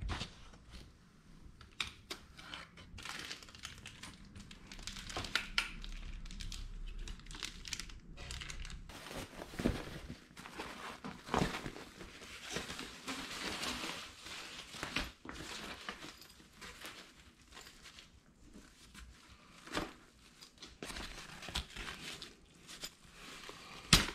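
Nylon fabric carriage of a pet stroller rustling and crinkling as it is handled and fitted onto the metal frame, with scattered knocks and clicks from the frame and fittings. A sharp click near the end as a plastic clip on the frame is pressed into place.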